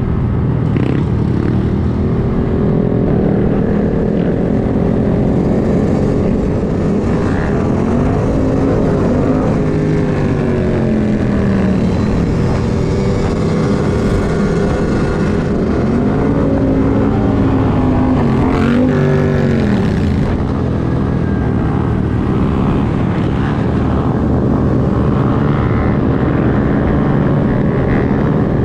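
Honda Grom motorcycle engines running under way. The pitch sweeps up and down twice, in the middle and again a few seconds later, as the throttle opens and closes.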